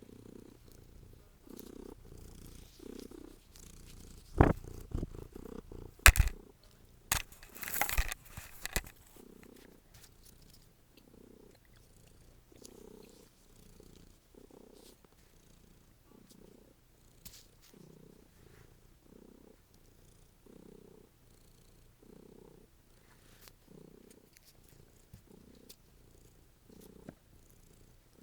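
Domestic cat purring loudly, the purr swelling and fading with each breath about once a second. Several sharp knocks and a rustle break in a few seconds in.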